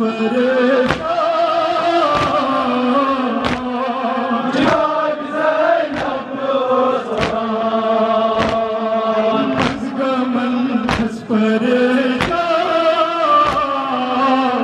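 Men chanting a Kashmiri noha, a mourning lament, in a drawn-out melody, with a sharp beat of hands striking chests (matam) in time about every second and a quarter.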